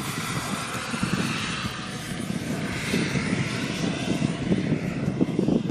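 Radio-controlled model helicopter in flight: an engine and rotor whine that drifts slowly up and down in pitch over an uneven low rumble.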